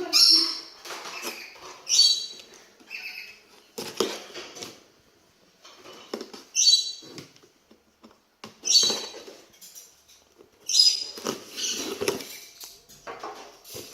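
Cardboard case of carded Hot Wheels cars being opened by hand: a series of short, scratchy rips and scrapes of cardboard and packing tape, one every second or two.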